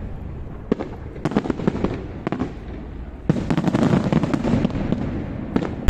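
Fireworks going off: a few separate sharp bangs, then from about three seconds in a dense, rapid run of cracks and bangs.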